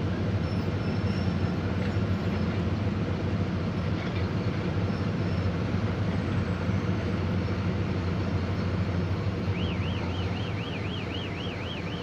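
Steady low drone of heavy diesel mining machinery heard from inside a truck cab, with a surface miner cutting coal close by. About ten seconds in, a warbling electronic alarm starts, rising and falling about three times a second.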